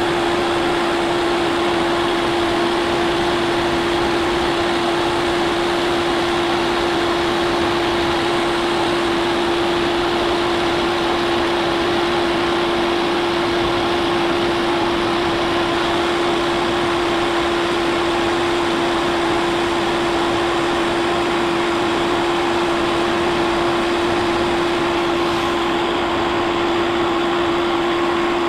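Milling machine running steadily with one constant tone, its end mill taking a slow continuous pass across a cast iron casting as the table feeds.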